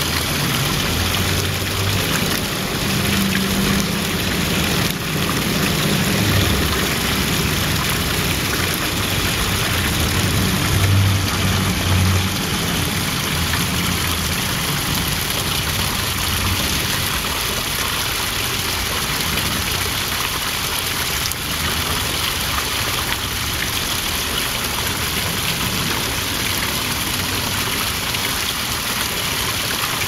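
Small stone garden waterfall spilling steadily into a pond, a continuous splashing rush of water. A low rumble comes and goes during the first half and is loudest a little past the middle of it.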